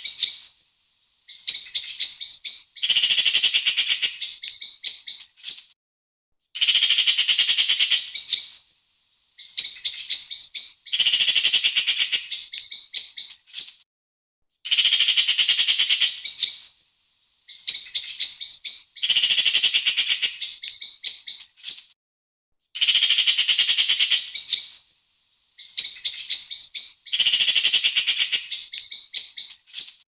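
Eurasian magpie chattering: a harsh, rapid rattle of about ten notes a second, in bouts of one to three seconds separated by short gaps.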